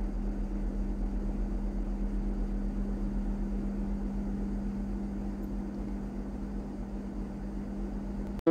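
A steady low hum with a constant droning tone that slowly grows fainter, then cuts off abruptly just before the end.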